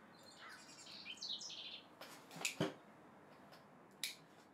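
Birds chirping faintly, including a quick falling trill about a second in. A few sharp clicks sound among them: two close together past the middle and one near the end.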